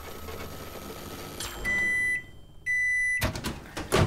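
A microwave oven runs with a low hum that stops with a click, then gives two long, steady, high-pitched beeps about half a second each. A sharp clack and a knock follow near the end.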